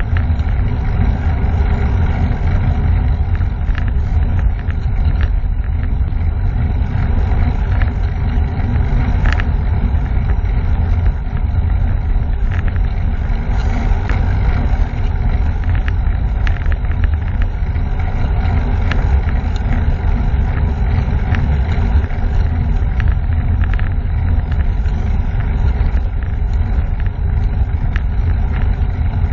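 Steady wind buffeting on a moving camera's microphone mixed with tyre and road noise, a loud low rumble throughout, with a few faint small knocks.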